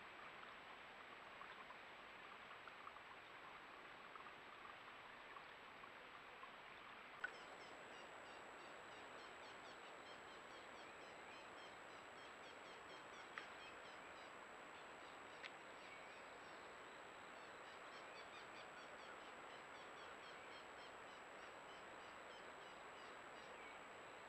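Faint outdoor ambience from trail cameras. First comes the soft, even rush of a shallow rocky creek. After a cut about seven seconds in there is a steady hiss, many faint high chirps, a thin high steady whine and a couple of light clicks.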